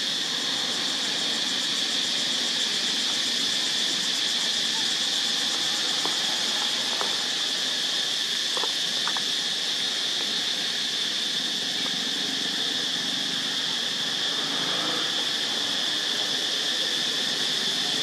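Steady, high-pitched drone of insects buzzing, with a few faint clicks around the middle.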